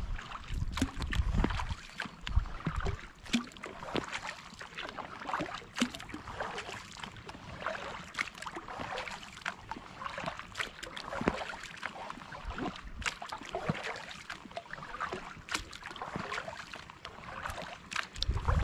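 Kayak paddle strokes through calm lake water: the blade dipping and pulling, with a steady patter of drips and small splashes. Brief low rumbles come in the first couple of seconds and again near the end.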